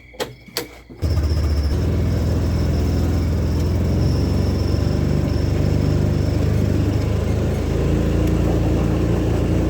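Two short clicks, then about a second in a vehicle's engine running loud and steady, heard from on board as it is driven.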